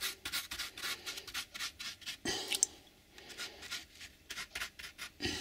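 Paintbrush bristles scrubbing water-thinned PVA glue onto a model railway baseboard: a quick series of scratchy brush strokes, with a short lull a little past halfway.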